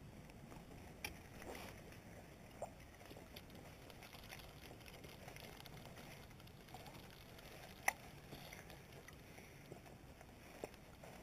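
Near-quiet water surroundings, with a low hiss and a few faint, sharp, separate clicks and knocks, the loudest a little before two-thirds of the way through.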